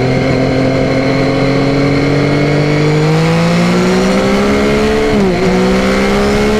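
Yamaha Tracer 9's 890 cc inline-three engine under way, its pitch climbing slowly as the bike gathers speed, with a brief dip in pitch about five seconds in before it picks up again.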